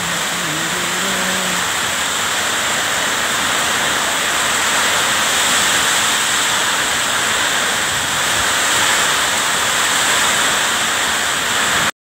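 Heavy rain driven by strong wind: a loud, steady rush of downpour that swells slightly around the middle and again near the end.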